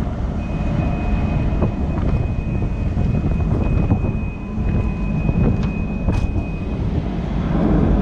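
Deep steady rumble of a berthed harbour ferry, with a thin steady high tone for about six seconds as the ferry's boarding ramp is lowered onto the pier, and a few light clanks.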